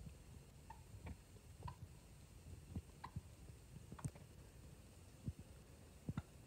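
Near silence: quiet outdoor background with faint, irregular small clicks and ticks about once or twice a second.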